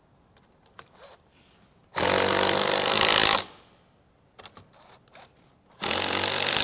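Cordless drill driving the rack's mounting bolts tight against a wrench on the nuts: two bursts of about a second and a half each, about two seconds in and near the end, with light metal clicks of the wrench and bolts in between.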